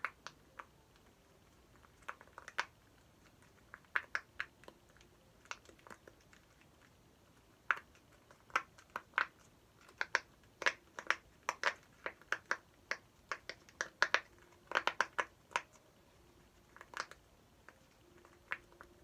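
Silicone push-pop fidget toy having its bubbles pressed one after another: a long string of short pops at an uneven pace, some coming in quick runs of three or four.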